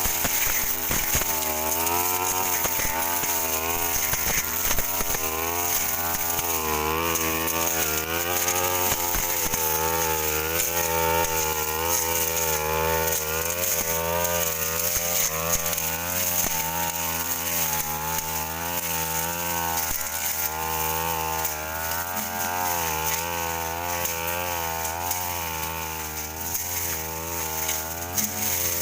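Stihl brush cutter engine running at high speed, its pitch rising and falling continuously as the Tanika blade cuts through dense weeds.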